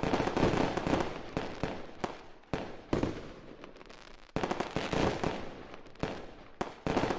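Fireworks going off: a series of sudden bangs, each trailing off into crackling.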